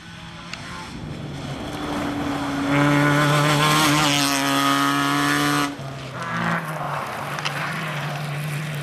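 Rally car engine running hard at high revs. It grows louder over the first few seconds and stays loudest for about three seconds, then drops suddenly to a lower, steadier note.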